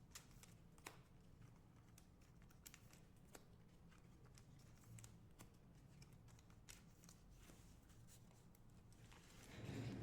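Near silence with faint scattered clicks and light rustles: trading cards being slid into plastic penny sleeves.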